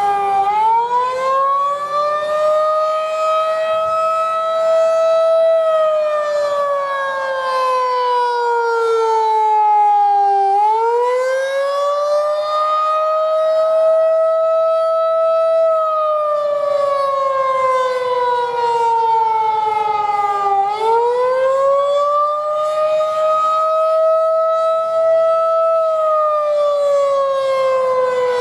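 Federal Signal 2001-DC outdoor warning siren (DC-motor version) sounding a wail. The pitch climbs over about two seconds, holds for a few seconds, then falls slowly over about five seconds, and this repeats roughly every ten seconds.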